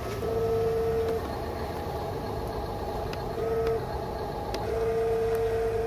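Radio-controlled truck's electric motor whining at one steady pitch in on-off spells: about a second near the start, a short burst around the middle, and a longer run near the end, with a few light clicks in between.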